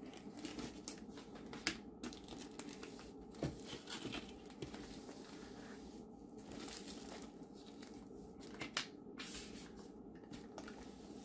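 Faint packaging crinkling and rustling as the contents of an opened kit box are handled, with scattered light clicks and taps.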